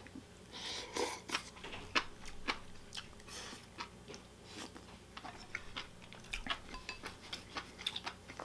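A person slurping a mouthful of noodles from kimchi stew about half a second in, then chewing with many short wet mouth clicks and smacks.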